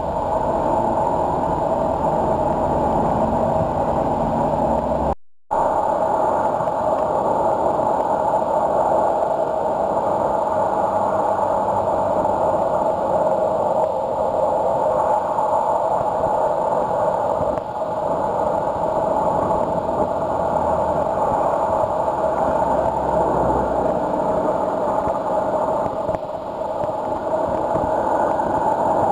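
Steady road traffic noise, a continuous even rush of passing vehicles. The sound cuts out completely for a moment about five seconds in.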